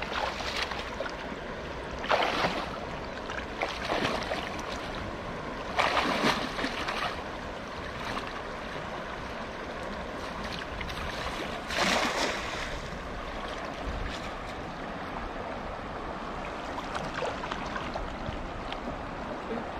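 Shallow river water running steadily around a man wading through it, with a few louder splashes, each about a second long, as he moves and handles a cast net in the water.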